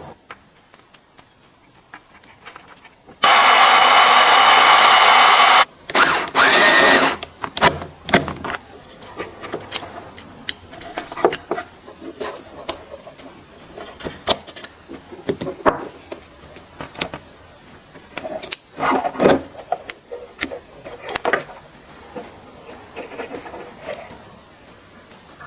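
Makita TW122D electric screwdriver's motor running in a burst of about two and a half seconds, then a second shorter burst, followed by scattered clicks and knocks of the tool being handled.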